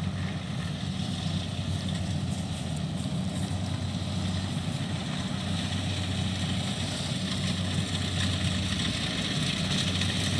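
Kubota combine harvester's diesel engine running steadily as it cuts rice, with a low hum that grows slowly louder as the machine approaches.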